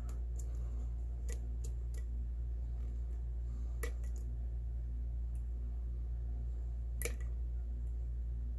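Lock pick and tension wrench working the pins of a pin-tumbler padlock: scattered light metallic clicks, the sharpest about seven seconds in, over a steady low hum.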